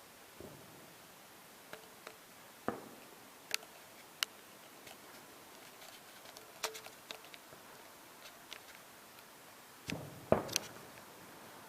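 Fireworks going off: scattered sharp cracks and pops, with a couple of deeper booms about ten seconds in, the loudest of the stretch.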